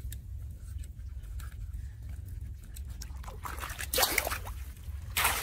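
Water trickling into a leaf-clogged roadside drain opening. About four seconds in and again near the end come short splashes as a hand rake drags leaves out of the drain through the shallow water.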